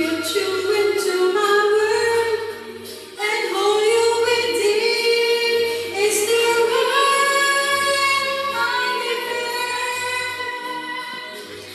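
A woman singing into a handheld karaoke microphone over a backing track, holding long notes. Her voice dips about three seconds in and fades away near the end.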